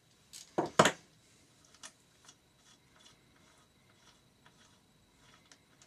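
A quick cluster of sharp knocks and clicks about half a second in, then faint scattered small clicks and rubbing: tools and small parts being handled while a motorcycle engine's cam chain tensioner is taken off.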